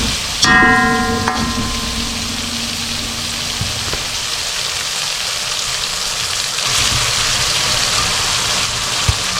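Food sizzling in hot oil in a pan, a steady hiss. A short pitched tone sounds about half a second in, with a low hum under it that stops a few seconds later.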